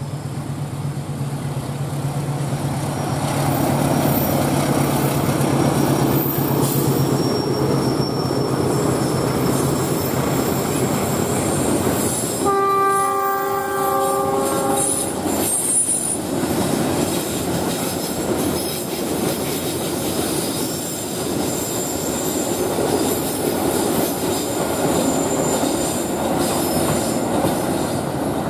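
Diesel locomotive hauling a freight train past, engine running and wheels rolling on the rails with thin high squeals. The locomotive's horn sounds about twelve seconds in: a long blast, then a short one.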